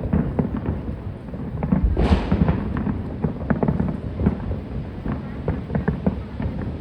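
Fireworks going off in a rapid, irregular string of sharp pops and crackles, with one heavier boom about two seconds in.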